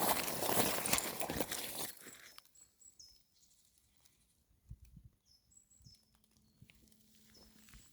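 Crinkling, crackling rustle for about the first two seconds. Then it goes quiet apart from a few faint high bird chirps and a soft thump or two.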